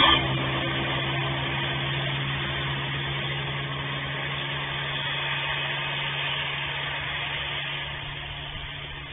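Small engines of a quad ATV and a mini bike running steadily and slowly fading as they ride away down the street, heard through a security camera's microphone.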